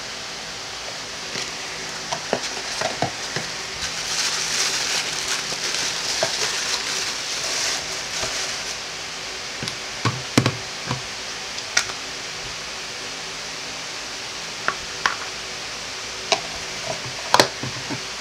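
Packaging rustling for several seconds, then a run of short clicks and knocks as the frosted plastic parts of a Gary Fong Collapsible Lightsphere flash diffuser are handled and taken out of the box.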